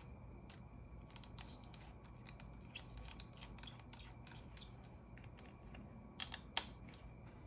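Small hand tools handled at a repair bench: irregular light clicks and scrapes, with a few sharper clicks about six seconds in, over a faint steady hum.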